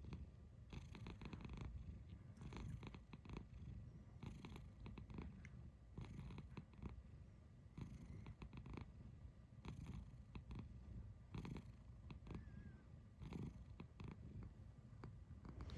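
Domestic cat purring steadily, with short soft trills (a rolled 'kururu') breaking in every second or two.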